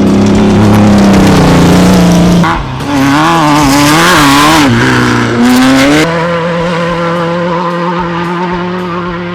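Off-road race vehicle's engine running hard. Its pitch wavers quickly up and down in the middle, then holds steady and slowly fades toward the end.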